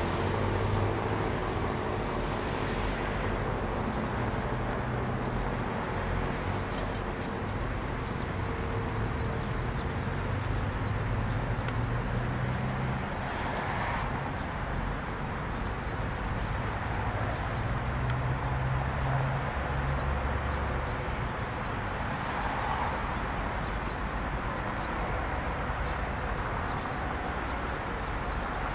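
An ACA Allertor 125 9/12-port rotating siren's tone falling and fading over roughly the first eight seconds as it winds down at the end of its test. Steady traffic rumble and wind noise run underneath and are the loudest sound.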